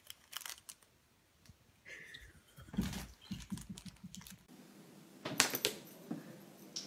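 Light crinkling and clicking of plastic candy-bar wrappers as a kitten paws and bites at wrapped chocolate bars, in scattered bunches of small crackles.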